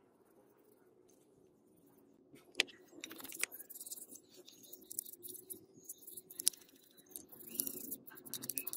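Toothbrush scrubbing a grimy jigsaw housing part: a fast, scratchy bristle rasping that starts about two seconds in, with a couple of sharp clicks along the way.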